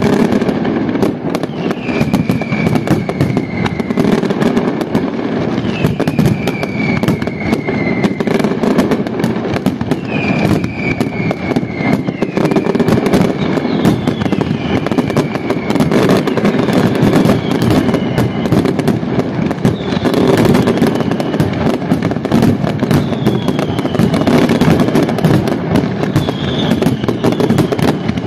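Fireworks display in a dense, continuous barrage of booms and crackling reports. High whistles falling in pitch rise above the barrage every few seconds.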